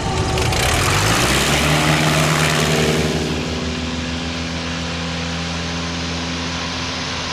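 Pitts S-1S biplane's four-cylinder engine and propeller running during the landing rollout, under a loud rush of wind and rolling noise. The engine's pitch rises a little about a second in. After about three seconds the rush fades and the engine settles to a steady low drone.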